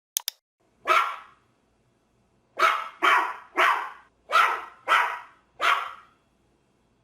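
A dog barking, played as a recorded sound effect: a single bark about a second in, then six more in quick succession, with a short click just before the first.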